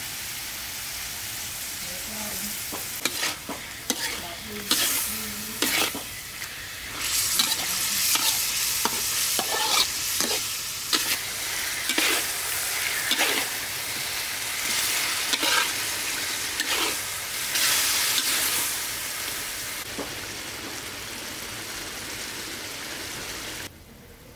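Chicken gizzards sizzling in a wok while a metal spatula scrapes and clatters against the pan, tossing them with freshly added sauce and seasoning. The stirring starts a few seconds in and eases off about twenty seconds in, leaving a steady sizzle that drops away suddenly near the end.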